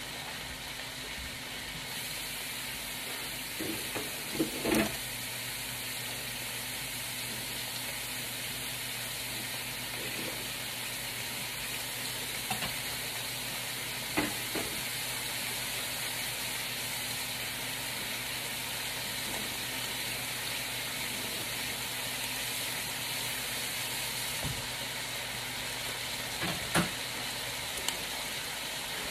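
Beef short rib chunks and onions searing in a large pan on high heat: a steady sizzle with a few louder pops and spatters.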